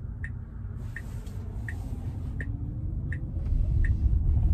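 Tesla turn-signal indicator ticking evenly, about one tick every three-quarters of a second, signalling a left turn. Underneath is low road and tyre rumble in the cabin that grows louder near the end.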